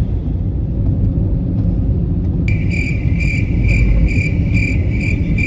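Low rumble of a car driving, heard from inside the cabin. About halfway through, a high-pitched electronic beeping starts abruptly, pulsing two or three times a second, and stops near the end.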